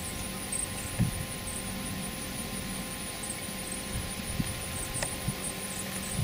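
A horse's hooves thudding dully on an arena's sand footing, faint and uneven, with a few louder thuds about a second in and again around four to five seconds in. A steady faint hum runs underneath.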